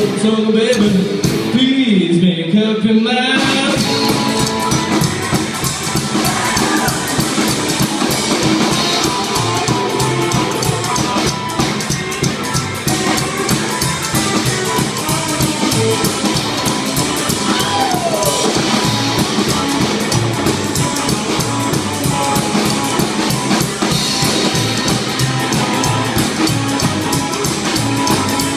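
Live rockabilly trio playing: hollow-body electric guitar, upright bass and drum kit. The first few seconds hold a sparse break with a bending held note, then the full band comes back in with a steady driving beat about three and a half seconds in.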